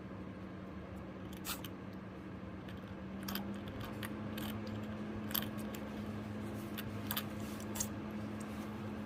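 A guinea pig sneezing: about half a dozen short, sharp sneezes at irregular intervals, over a steady low hum.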